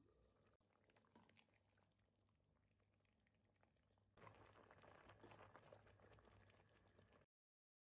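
Faint cooking sounds: a meat-and-vegetable stew simmering in a kazan and being stirred with a wooden spatula. About four seconds in comes a louder crackling, bubbling hiss of spaghetti boiling in a pot, which cuts off suddenly near the end.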